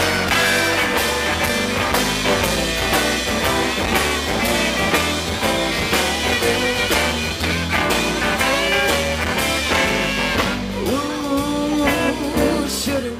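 Live blues-rock band playing through a stage PA: electric guitars, electric bass, drum kit and tenor saxophone over a steady drum beat, with longer held notes in the last couple of seconds.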